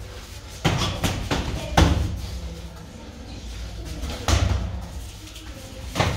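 Gloved punches and kicks landing during kickboxing sparring: a handful of sharp thuds at uneven intervals, the loudest about two seconds in.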